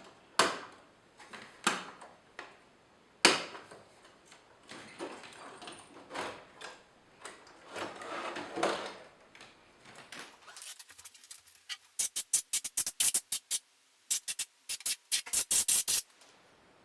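Clicks, knocks and sliding clatter of a workstation's power supply being worked loose and pulled out of its metal case. From about ten seconds in, a fast run of short, sharp bursts of hiss cuts in and out.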